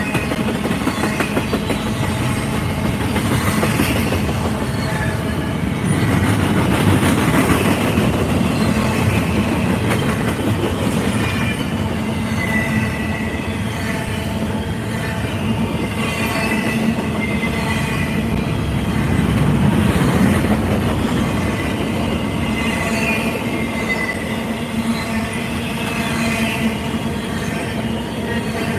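Double-stack container freight cars rolling steadily past on the rails, a continuous heavy rumble of wheels on track. Thin high wheel squeals waver in and out through the second half.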